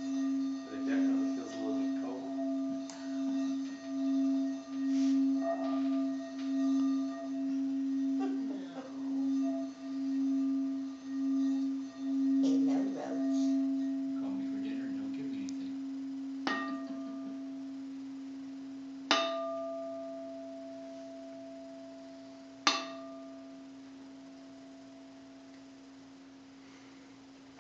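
Quartz crystal singing bowl rubbed around its rim with a wand, giving a steady low hum that pulses about once a second; partway through the rubbing stops and the tone rings on. The bowl is then struck three times, the first lightly, each strike ringing out and slowly fading.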